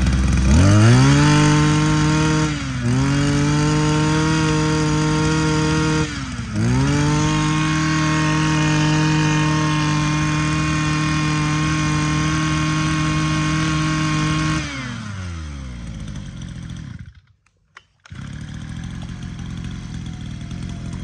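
Echo 260 26 cc two-stroke brush cutter engine revving up and held at high revs. The throttle is briefly eased twice and the engine picks up again each time. About 15 seconds in the throttle is released, and the revs fall until the engine stops.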